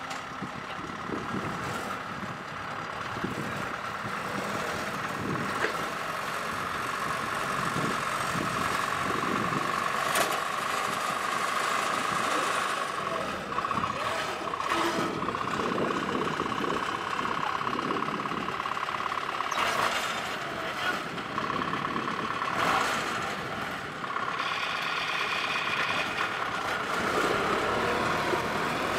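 Engine of a homemade tracked rice carrier, built from a converted rice harvester, running steadily under load as it crawls over ramps and through mud. A steady high whine runs through it, and there are occasional knocks from the tracks and frame.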